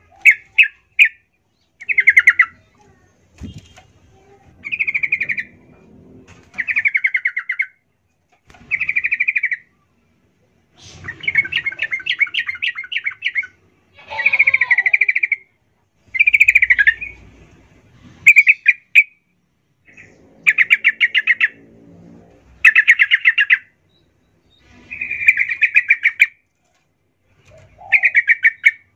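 Yellow-vented bulbul (trucukan) calling in a string of short, rapid chattering phrases, each under a second long, repeated every second or two.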